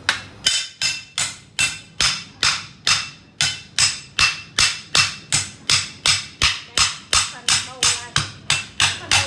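Heavy kitchen knife wedged in a large flathead catfish being hammered on the back of its blade to chop through the fish's backbone: steady, even blows about three a second, each with a short metallic ring.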